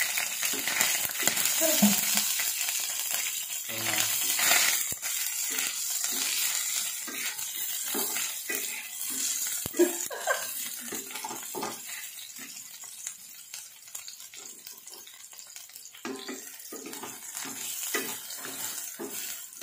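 Chopped garlic sizzling in cooking oil in a stainless steel frying pan, stirred with a wooden spatula that scrapes and taps against the pan many times.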